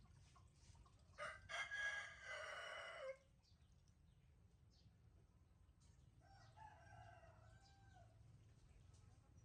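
A rooster crowing once, loud, for about two seconds starting a second in, then a fainter, shorter crow about six seconds in.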